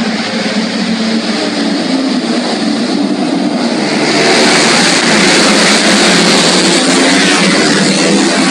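Racing motorcycle engines running at high revs, growing louder about four seconds in.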